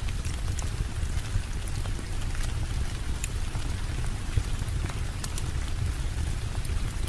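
Steady rain with a low rumble underneath, sprinkled with scattered sharp ticks and small pops.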